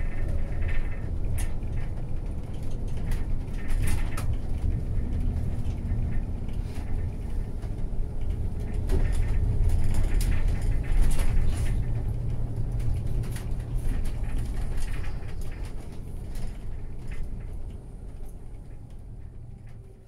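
Inside a moving vehicle on a narrow road: low engine and road rumble with frequent rattles and creaks from the cabin, fading out near the end.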